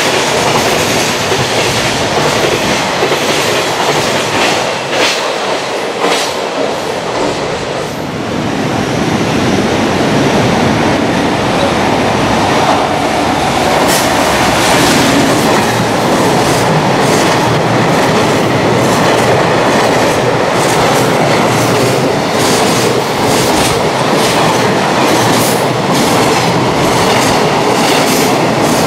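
JR Freight container trains passing through a station at speed, the wheels clacking over the rail joints. About eight seconds in, one train's noise drops away and another builds as its electric locomotive arrives and the container wagons run past close by.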